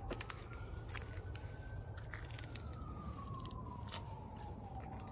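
Faint siren wailing, its pitch rising slowly for about two seconds and then falling for about three, with a few light clicks over a low rumble.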